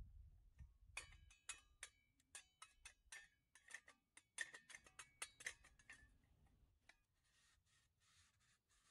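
Light metal clicks and clinks of camping gear being handled: a quick, irregular run of small taps, some with a short ring, stopping about six seconds in. Soft rustling follows near the end.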